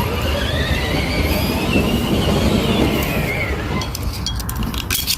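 Metal-on-metal squeal from the JLG 400S planetary drive hub as its parts are turned and worked apart. The squeal rises in pitch and then falls away over about three seconds, with a few light metallic clicks near the end.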